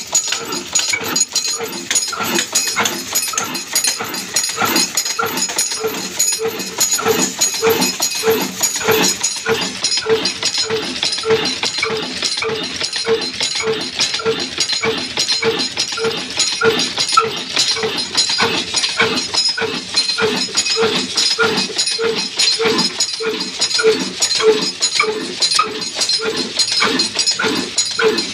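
Old black single-cylinder desi diesel engine of the Ruston type running steadily, with a regular knocking beat of about two firing strokes a second.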